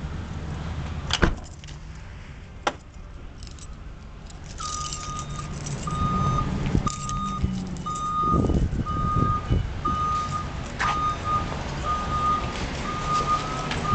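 A vehicle's reversing alarm beeping at one steady pitch, about once a second, starting some four and a half seconds in. Before it, a knock about a second in and a sharper click a second later.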